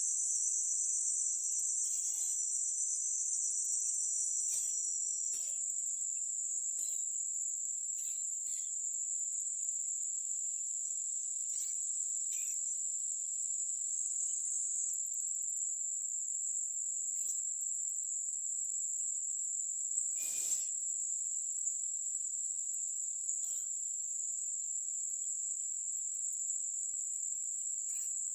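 Insects chorusing in a forest: one steady high-pitched drone, with a second, slightly lower-pitched chorus that stops about five seconds in. Faint scattered clicks, with a sharper one about twenty seconds in.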